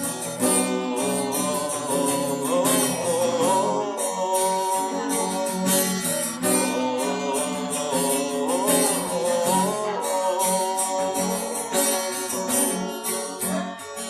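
Acoustic guitar strumming in an instrumental break between sung verses, with a melody line bending over the chords.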